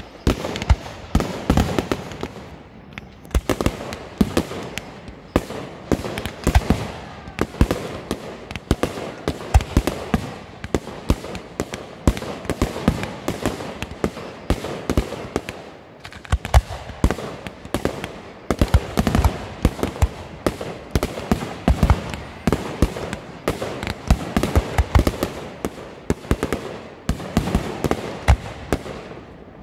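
Aerial fireworks shells bursting in quick succession: a dense run of sharp bangs, several a second, with no pause.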